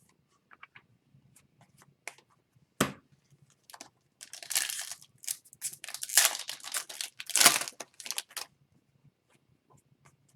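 A trading card pack's foil wrapper being torn open and crinkled, in several ripping pulls over a few seconds, after a few light clicks and a sharp snap of cards being handled.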